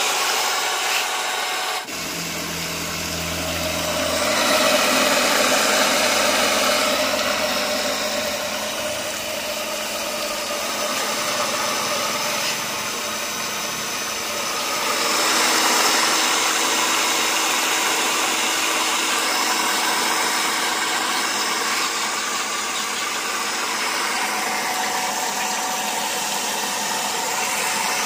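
Cordless drill motor running steadily under load, spinning a homemade centrifugal water pump, with water gushing from the pump's outlet and splashing onto the ground.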